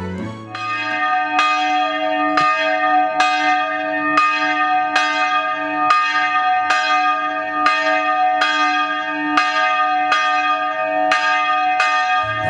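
A single church bell tolling steadily, about one strike a second, each stroke ringing on into the next.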